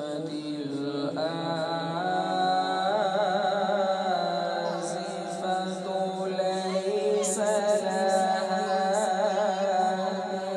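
A man's unaccompanied melodic Quran recitation (tajweed) through a microphone, one drawn-out phrase of long held notes with wavering ornaments that rise and fall in pitch.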